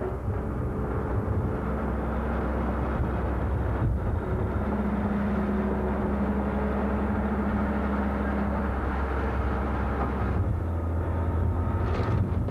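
John Deere 544G wheel loader's diesel engine running steadily while the machine moves a bucket of dirt. A steady hum joins in for a few seconds midway.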